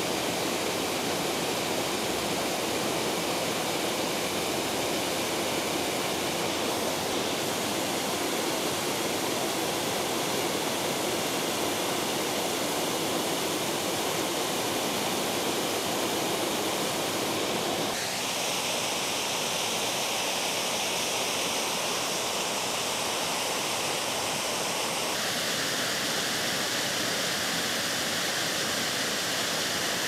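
Steady rush of a waterfall pouring over stepped rock ledges into whitewater. About halfway through, and again a few seconds later, the tone shifts abruptly, becoming brighter and hissier.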